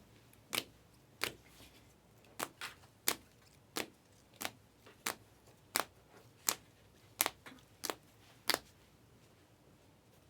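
About a dozen sharp single clicks, roughly two-thirds of a second apart and slightly uneven, from trading cards being flipped and snapped down one at a time. They stop near the end.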